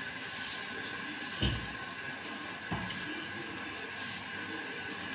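Wet handling of a cuchia swamp eel in a metal basin of water, rubbed with a cloth to strip its slime: faint squelching and dripping with two dull knocks against the basin, about a second apart.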